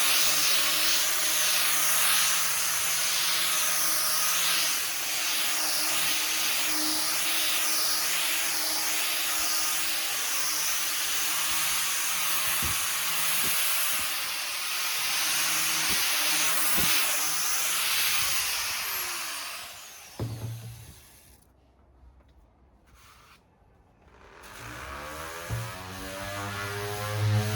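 Orbital sander running on a wooden table top: a steady whirring hiss that rises and falls again and again as it is worked over the surface. About two-thirds of the way through it winds down and stops, and after a few seconds of near quiet a rising hum builds near the end.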